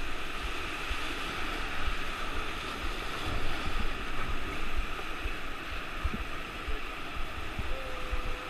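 Class V whitewater rapid rushing steadily around an inflatable raft, with uneven low thumps from splashing and buffeting against the camera.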